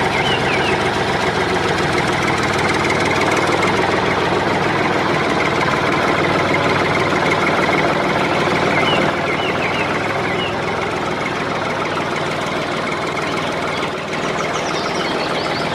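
An engine running steadily with a fast, even knocking beat, a little quieter after about nine seconds. Short bird chirps come through now and then.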